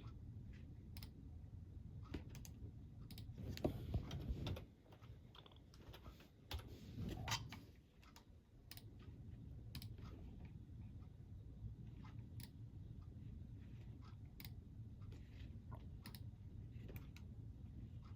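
Faint close-miked body sounds while snacking on crunchy food: a steady scatter of small crackling clicks from crunchy chewing, over a low rumble, with two louder, longer low sounds from the belly about four and seven seconds in.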